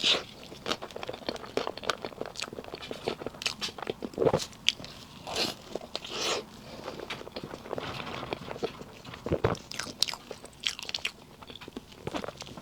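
Close-miked eating sounds of a person biting and chewing soft, chewy layered cake: irregular mouth clicks and soft chewing noises.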